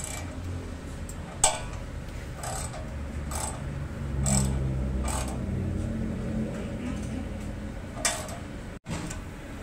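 Scattered sharp clicks and knocks of metal tow-bar parts and tools being handled, the loudest about one and a half seconds in, with a low hum of voices or machinery in the middle.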